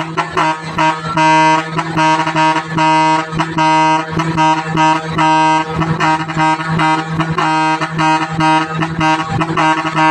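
A loud, brassy 4-foot horn blaring a fast rhythmic run of short pulsed notes over a steady low drone.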